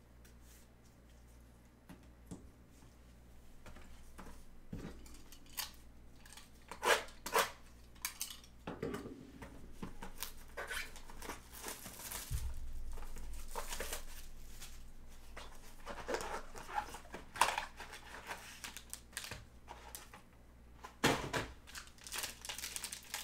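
Plastic wrapping crinkling and tearing, with a cardboard trading-card box and its sealed contents handled by gloved hands: irregular bursts of rustling that start about two seconds in.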